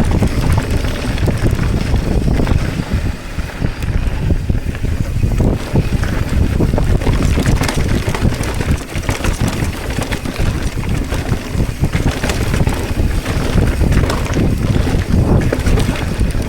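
Wind buffeting the microphone of a camera carried on a moving mountain bike, over a loud, uneven rumble and rattle from the tyres and bike on the trail.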